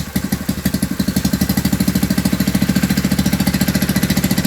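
Honda GX160 single-cylinder engine on a plate compactor running on a newly fitted carburettor, picking up speed about a second in and then holding a steady, fast, pulsing beat.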